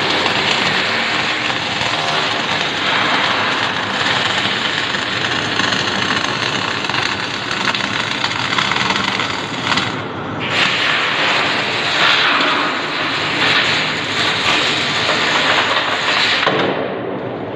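Loud, steady machinery noise, a dense hiss with a faint hum beneath it, running without a break.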